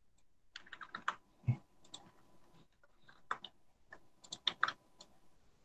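Keystrokes on a computer keyboard: an irregular run of short clicks, some in quick clusters.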